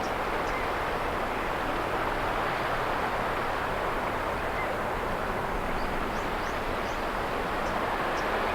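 Sea waves washing continuously in a steady wash of surf, with faint, scattered short insect chirps high above it.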